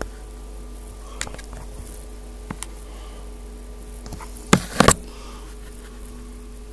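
Handling noise: scattered clicks and a quick cluster of louder knocks about four and a half seconds in, as the camera brushes and bumps against clear plastic tubing and connectors, over a steady low hum.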